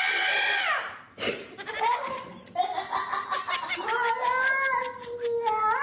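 Domestic cat yowling in long, drawn-out calls: one ends less than a second in, and a second, longer yowl lasts about four seconds.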